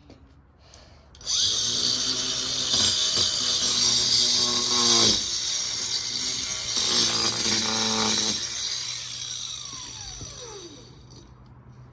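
Battery-powered cutting tool running as it cuts into a rock. The motor starts suddenly about a second in and runs loud and high-pitched, then winds down with a falling whine near the end.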